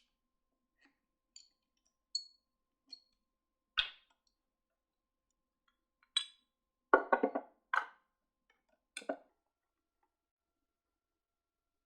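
A scattering of sharp clicks and clinks from small hard objects being handled and set down, with a short rattle of several knocks about seven seconds in.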